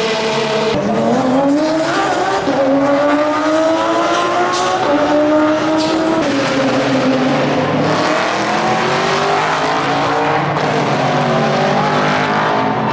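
Mercedes SLS AMG race car's V8 engine at full throttle, its pitch climbing through a gear and then dropping sharply at a shift about six seconds in, then falling again near the end as it comes off the power.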